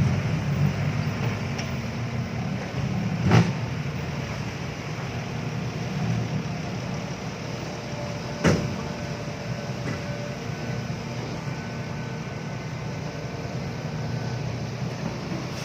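A heavy diesel engine running steadily, with two sharp knocks, one about three seconds in and one about eight seconds in.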